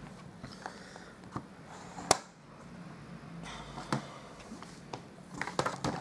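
Paper-crafting tools being handled on a tabletop: a few light knocks and clicks as things are picked up and set down, the sharpest about two seconds in.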